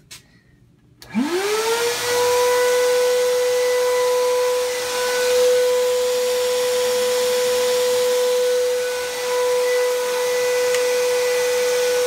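A high-voltage Tesla hairpin circuit switched on about a second in, powering a microwave oven's AC fan motor. It gives a loud hum that rises quickly in pitch and then holds steady, over a strong hiss.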